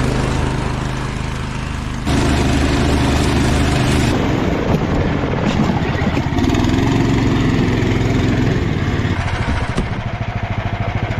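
Snowdog motorized track machine's small engine running under load, its pitch shifting, with abrupt changes in the engine note about two and four seconds in.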